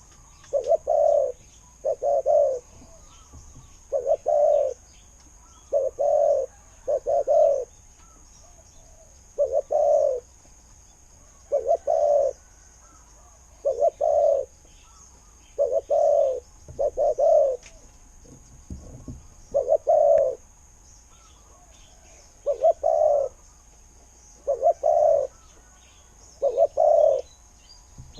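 Spotted dove cooing over and over: short, low coo phrases of one to three notes, repeating about every two seconds.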